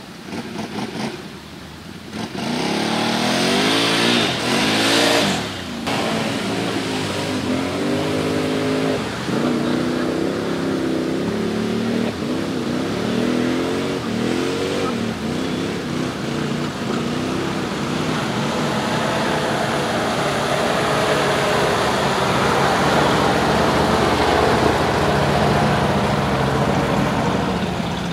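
GAZ-66 4x4 truck's engine revving up and down again and again as it drives over rough ground, then running at a steadier pitch in the second half.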